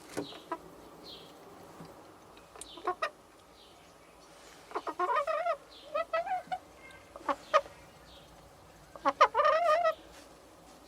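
Chickens calling: several short, wavering squawks around the middle and a longer call of about a second near the end, with a few sharp clicks in the first seconds.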